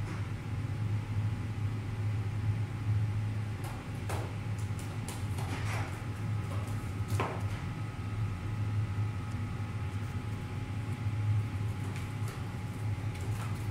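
A cat shifting about in a cardboard pizza box, making a few brief scratchy rustles and taps between about four and seven seconds in, with a couple more near the end. Under them is a steady low hum.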